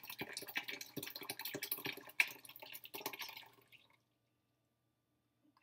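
Curds and whey poured from a stainless steel Instant Pot inner pot into a cheesecloth-lined colander, splashing and dripping, with one sharp tap about two seconds in. The pour tapers off and stops about four seconds in.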